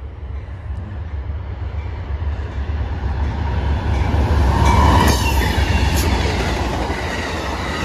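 A GE P42DC diesel locomotive leading Amtrak's Lake Shore Limited approaches and passes close by at speed. Its rumble builds to its loudest about five seconds in, with a couple of sharp clicks from the wheels on the rails as the locomotive goes by.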